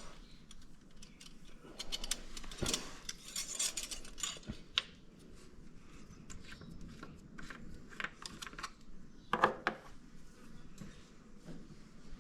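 Scattered light clicks and clinks of small hard items being handled, with one louder knock about nine and a half seconds in.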